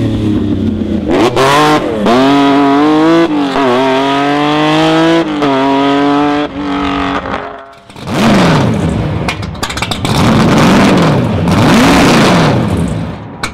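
A racing car's engine accelerating hard up through the gears, its pitch climbing and dropping back at each of several quick upshifts. From about eight seconds in comes a rougher, hissier stretch with the revs swinging up and down several times.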